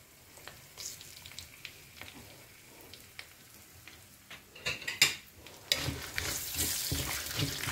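Urad dal, dried red chillies and tamarind frying in oil in a clay pot: faint scattered crackling at first, then a louder sizzle in the last two seconds as a wooden spatula stirs and scrapes through them.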